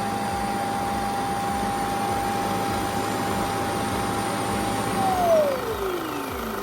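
Shark Matrix Plus self-empty dock's suction motor running with a steady whine as it empties the robot's dust bin, then switching off about five seconds in, its pitch falling as it spins down.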